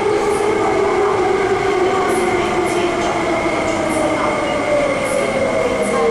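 An MTR SP1900 electric train heard from inside the passenger car while running: a steady rumble of wheels and car body. Over it the traction motor whine falls slowly in pitch as the train slows, with a steady high tone and occasional faint clicks.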